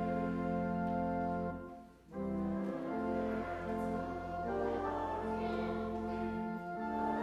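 Instrumental hymn music, held chords changing every second or so, with a short break about two seconds in.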